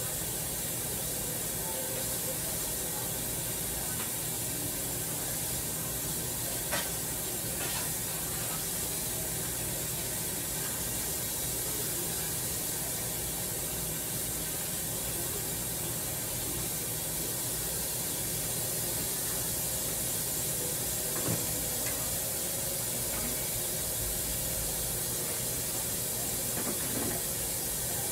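Large stockpot of greens boiling on an electric stove, giving a steady hiss with a faint low hum. A few faint clicks come through, about a quarter of the way in, about three quarters of the way in and near the end.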